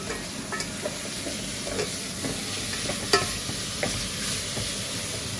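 Chicken sizzling gently over weak heat as it sautés with onion, garlic and ginger in a metal pot, with a spoon stirring and clinking against the pot; one sharper clink about three seconds in.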